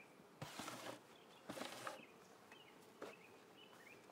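Faint outdoor ambience with a bird chirping over and over, about two short chirps a second. Two brief bursts of noise, the loudest sounds, come in the first two seconds, and a single click about three seconds in.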